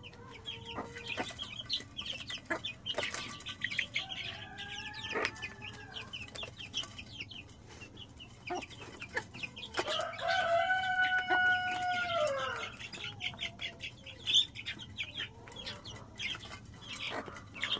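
Chicks peeping, many short high cheeps, with an adult chicken clucking among them. About ten seconds in, an adult chicken gives one long drawn-out call lasting about two and a half seconds that falls away at the end.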